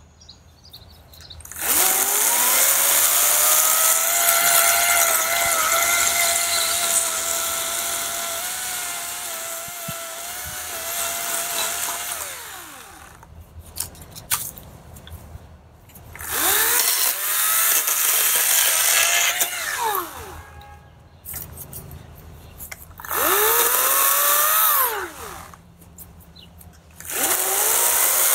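Battery-powered EGO 56V 14-inch chainsaw revving up with a rising whine and running under load for about ten seconds while cutting a log. The trigger is then released, and several shorter bursts follow, each spinning up and winding down again, with short gaps in between.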